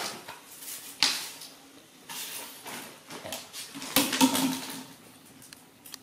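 Red plastic wastebasket knocked and scraped about on a tiled floor, with sharp clatters; the loudest comes about four seconds in as the basket is flung aside and lands.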